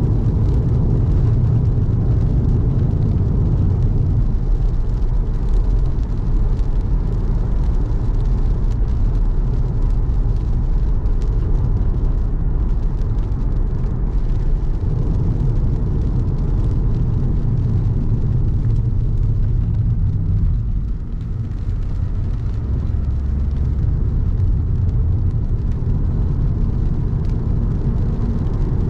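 Car driving on a wet road: a steady low rumble of engine and road noise, easing briefly about 21 seconds in.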